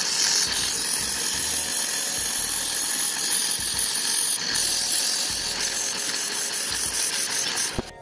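Loud, steady hiss with a faint whine as the quad's swing arm bolt is cleaned. It starts abruptly, stutters a few times near the end and cuts off just before the end.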